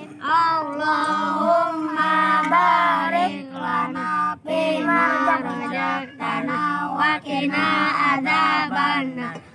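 Children reciting the prayer before eating together in a sing-song chant, ending in time for the "Amin".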